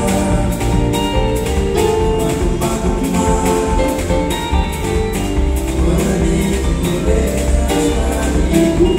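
Live band playing a jazz number: drum kit keeping a steady beat, with electric guitar, electric bass and keyboards, and a man singing into the microphone.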